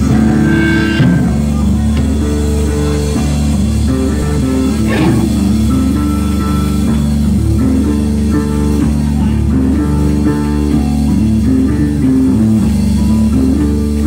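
Live rock band playing: electric guitar over bass and drum kit, going through a repeating riff, loud and close to the guitar amp.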